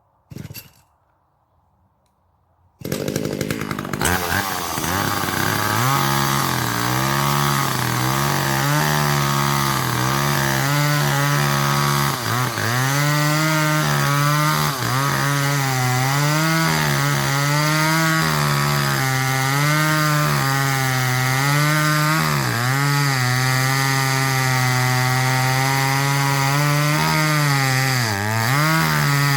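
A chainsaw comes in loud about three seconds in, after a short knock, and runs on steadily. Its engine pitch keeps dipping and recovering as the chain bogs and frees while cutting poplar wood.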